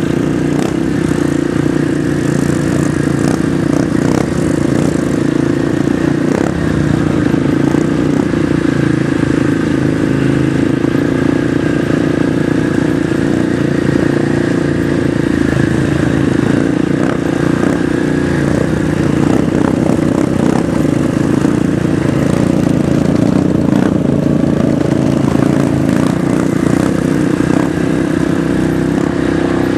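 Off-road vehicle engine running steadily at a fairly constant speed while riding, with scattered knocks and rattles.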